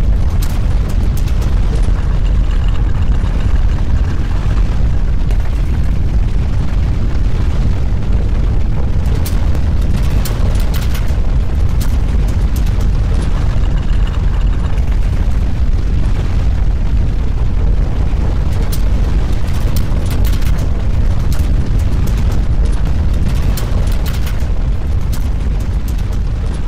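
Loud, steady deep rumble with scattered crackles and rattles on top, easing off slightly near the end.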